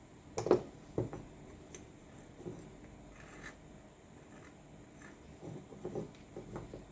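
Light knocks and clicks of tool parts being handled and set down on a work surface: two sharper knocks near the start, a few faint clicks, then a quick cluster of small knocks near the end.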